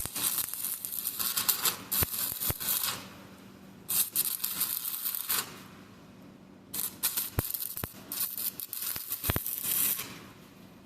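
Electric arc welding: the arc crackles and sputters in three runs of about one to three seconds each, with short pauses between, as weld is laid onto a broken bolt stub in an engine block to get a grip for extracting it.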